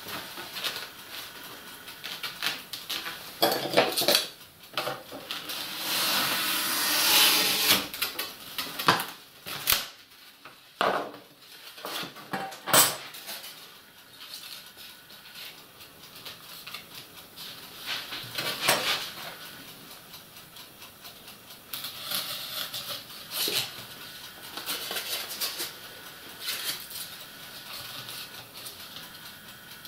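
Knife cutting and scraping through a sheet of polystyrene foam (Styropor) along a ruler, then foam pieces being handled, rubbed and pressed into place, with a few sharp knocks of tools and pieces on the bench.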